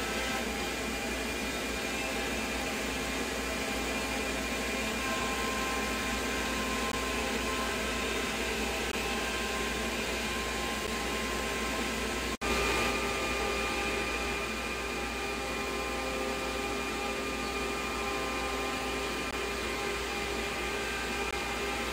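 CNC router spindle cutting a wooden panel with the dust collection running: a steady whine and hiss with several held tones. The sound drops out for an instant about halfway through and comes back a little louder.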